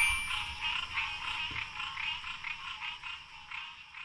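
A chorus of calling animals, a dense trilling that pulses about six times a second, with a short click at the start; it fades out at the very end.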